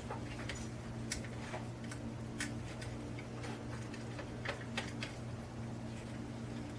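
Scattered, irregular light clicks and ticks from small hand tools and wires being handled at a workbench, over a steady low hum.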